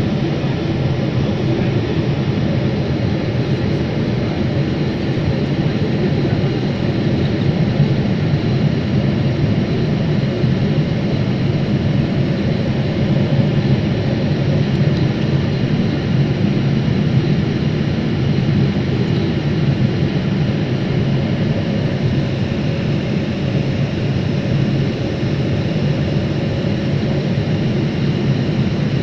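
Jet airliner cruising, heard from inside the cabin: the engines and the rushing air make a steady, even, deep noise with no changes.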